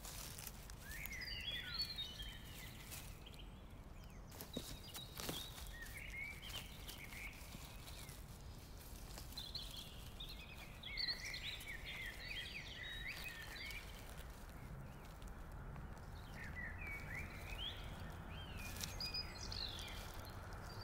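Small birds twittering in several bursts of short chirps, with a few rustles and clicks from hands moving through heather and dry grass.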